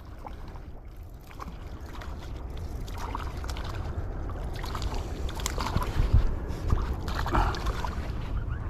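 Steady low rumble with scattered light clicks and rustles, the sound of handling and wind on a camera microphone.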